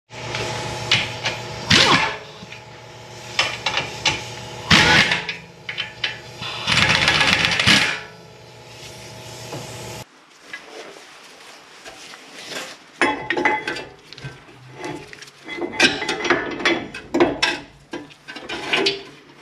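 Metal tool work on seized brake parts: a steady motor hum with three loud grinding scrapes over about ten seconds, then, after an abrupt change, irregular metal clinks and scrapes.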